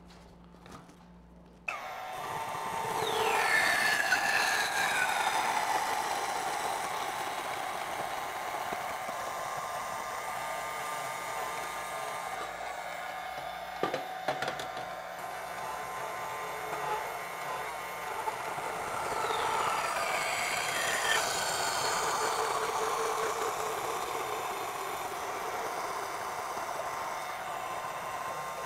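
Portable DeWalt bandsaw starting about two seconds in and cutting through a metal exhaust tube bend, run slowly. The pitch falls as the blade bites into the tube, a couple of sharp knocks come near the middle as the first piece comes off, and the saw runs on through a second cut.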